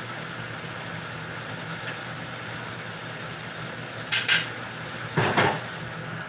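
Kitchenware clattering twice as it is handled, about four and five seconds in, over a steady low hum.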